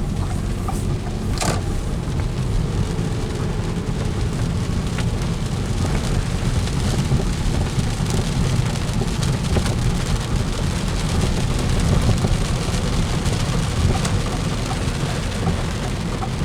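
Road noise inside the cabin of a moving 2010 Ford Fusion Hybrid: a steady low rumble with an even, rain-like hiss above it, as from tyres on wet pavement.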